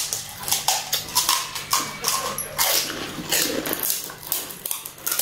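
Crisp, hollow pani puri shells being cracked open with fingers and crunched while eating, giving a quick, uneven run of short sharp crackles mixed with chewing and mouth noises.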